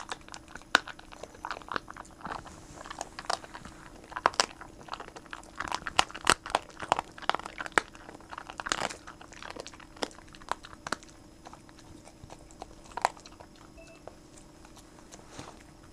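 Pembroke Welsh corgi crunching and chewing salmon backbone: many sharp, irregular crunches of bone breaking between its teeth. The crunches come thickly at first and grow sparser in the last few seconds.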